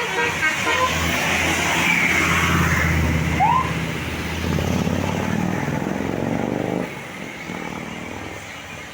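Large diesel bus engine running as the bus goes by, a low steady rumble that swells a couple of seconds in and drops off abruptly about seven seconds in. The tail of a horn note ends right at the start.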